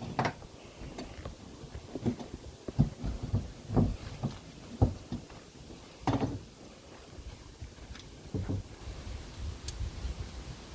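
Irregular knocks and thumps of wooden coop building work, about seven clear strokes spread unevenly, the sharpest near the start and about six seconds in.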